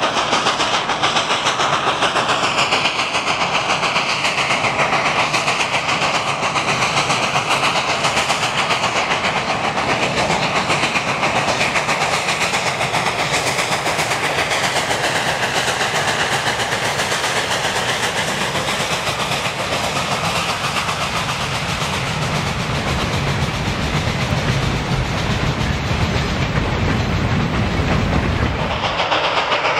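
2-8-0 steam locomotive No. 734 working steam with a fast, steady exhaust beat, and its train of freight cars rolling along the track. A low rumble grows louder from a little past the middle as the cars pass.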